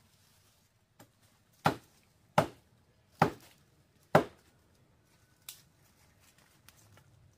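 Four hard chopping blows, about 0.8 s apart, each a sharp crack with a short ring, with a lighter knock just before them and another a second after.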